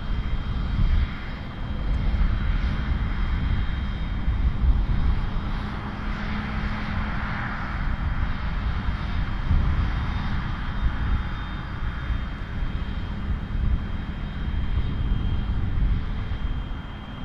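Case IH tractor's diesel engine running steadily under load as it pulls a loaded silage trailer through deep mud, a continuous low rumble.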